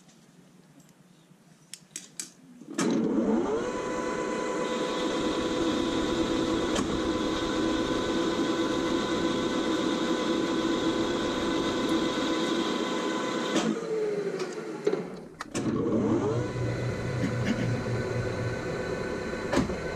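Takisawa TAL510 engine lathe: after a few clicks, the spindle starts about three seconds in with a rising whine and runs steadily while the tool takes an interrupted cut across the corners of a hex bar. About fourteen seconds in the spindle spins down, there is a sharp clunk, and it starts up again and runs on.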